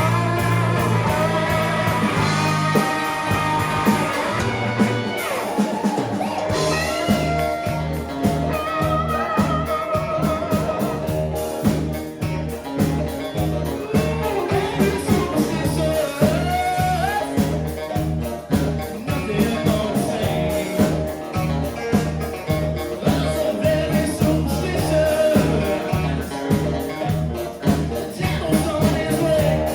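Live rock band playing with singing and guitar: held chords for the first few seconds, then the drums and bass come in with a steady, even beat under the vocal line about six seconds in.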